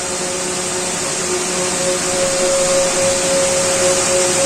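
Jiunn Long open-width circular knitting machine running at production speed: a steady whirring hiss with an even hum underneath.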